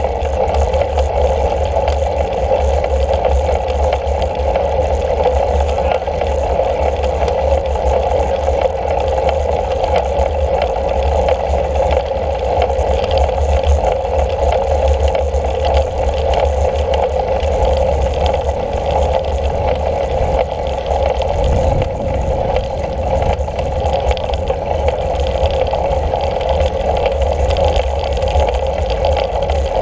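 Steady rush of wind and road rumble on a bicycle-mounted action camera, riding a road bike along an asphalt road.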